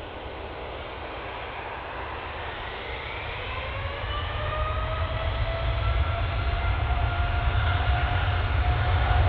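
Boeing 787-10's twin turbofan engines spooling up for takeoff. From about three seconds in, a whine rises in pitch and a deep rumble builds beneath it, the whole sound getting steadily louder as thrust comes on.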